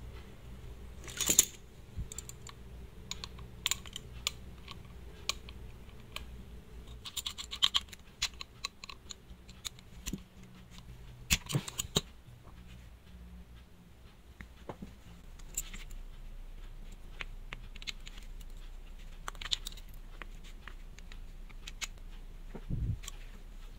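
Scattered clicks, taps and scrapes of a stainless-steel wristwatch with a rubber strap being handled and fitted into a metal watch-case holder, with a dull knock near the end.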